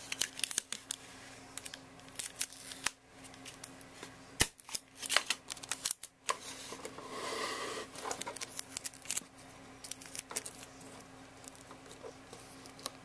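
Clear tape being pulled from a desk dispenser, torn off and pressed onto a plastic case: scattered clicks, crackles and rustles, with a longer rasp about seven seconds in.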